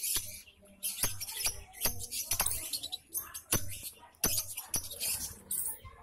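A flock of caged lovebirds chattering in shrill, high twittering bursts. Irregular sharp clicks and taps run through it, about a dozen in all.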